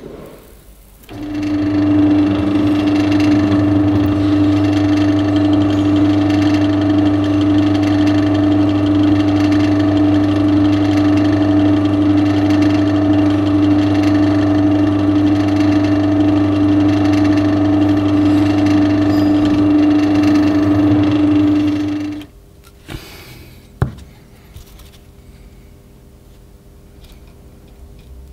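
Bench drill press motor running steadily while drilling a hole through a knife handle. It starts suddenly about a second in and stops near 22 seconds, followed by a couple of sharp clicks.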